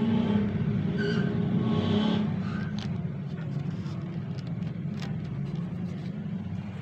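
A steady low mechanical rumble, with a few sharp clicks from the plastic toner cartridge being handled.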